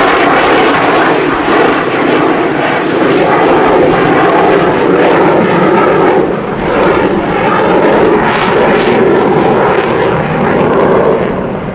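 F-16 fighter jet's Pratt & Whitney F100 turbofan, a loud, steady jet roar whose pitch shifts as the aircraft manoeuvres, starting to fade near the end.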